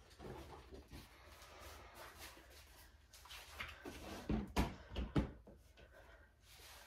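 Faint rustling and shuffling of a person moving about, with a few soft knocks and thumps about four to five seconds in.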